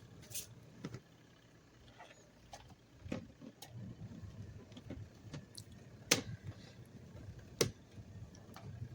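A handful of sharp, isolated clicks and knocks, five or so spread irregularly, the loudest two about six and seven and a half seconds in, over a faint low hum.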